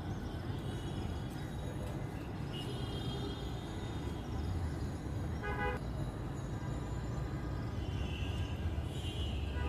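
Steady road-traffic rumble with several short vehicle horn toots over it, one lower-pitched honk about five and a half seconds in.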